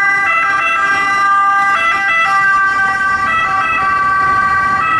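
Electronic ambulance siren sound: several steady, clear tones that shift in pitch in small steps, without pause.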